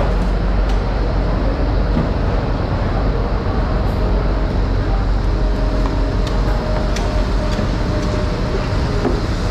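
Steady low mechanical rumble with a constant hiss, with a few faint clicks and knocks scattered through it.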